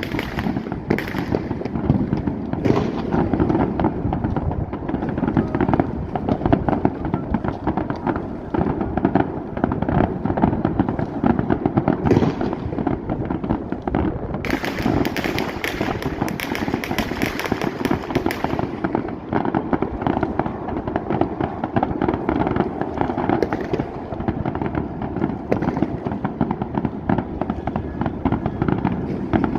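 Many fireworks and firecrackers going off at once: a dense, unbroken crackle of bangs, with a brighter burst of crackling about halfway through.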